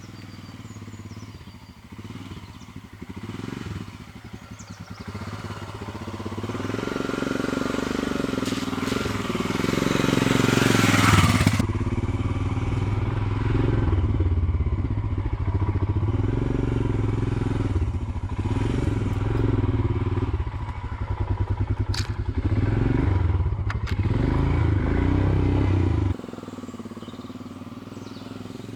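Royal Enfield Himalayan's air-cooled single-cylinder engine running as the motorcycle is ridden on a dirt track. The engine note rises and falls with the throttle and is loudest about ten seconds in, with a couple of sharp clicks later. The sound drops abruptly to a lower level near the end.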